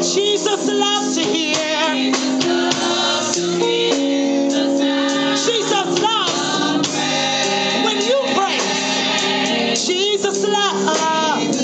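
Gospel praise team singing with instrumental accompaniment, several voices holding wavering notes over sustained chords.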